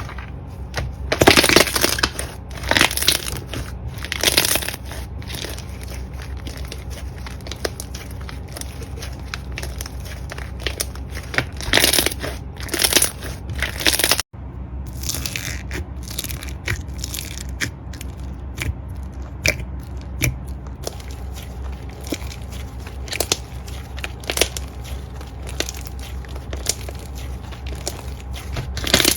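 Slime being squeezed and pressed by hand, giving irregular bursts of crackling and clicking. The sound drops out for a moment about halfway through.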